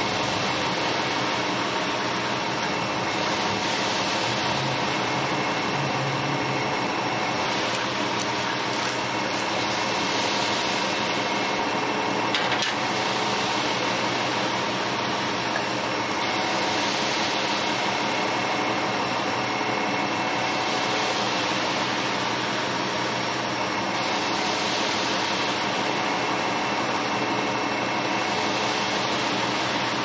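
Concrete mixer truck's diesel engine running steadily at idle, with a soft scraping swish every several seconds as the bull float is pushed and pulled across the wet concrete.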